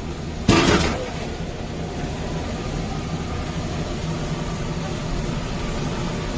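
Steady low rumble of the burner heating a large aluminium deg of oil, with a brief loud noisy burst about half a second in.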